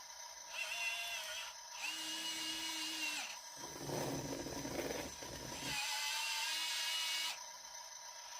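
Small electric motors of radio-controlled 1:50 scale construction machines whining in four short runs, stopping and starting between commands. The third run is rougher and noisier.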